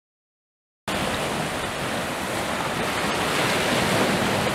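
Sea surf breaking and washing over a rocky shore, a steady rushing noise that starts suddenly about a second in after silence.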